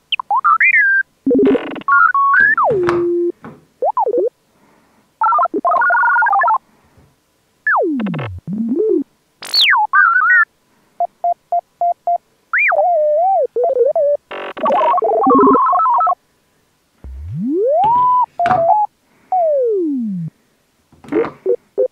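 Playful synthesizer sound effects: tones sliding up and down in pitch, a quick run of short beeps, brief chords and noisy swishes, each separated by short gaps.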